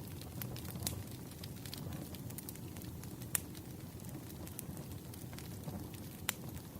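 Firewood burning: irregular sharp crackles and pops over a steady low rumble, with a few louder pops about a second in, halfway through and near the end.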